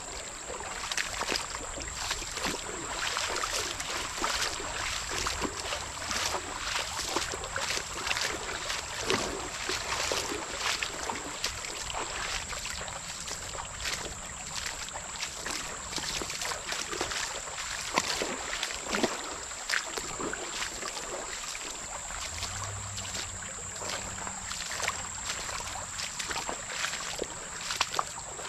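Footsteps wading through a shallow, fast-flowing creek: irregular splashes and sloshing over the steady rush of the current.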